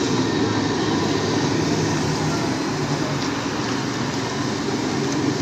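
Steady, dense din of a busy roadside food stall: an even wash of street and stall noise with no single sound standing out.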